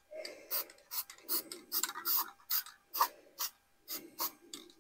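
A quick run of short rasping strokes, about two a second, from hand work on a small part of the generator's exhaust.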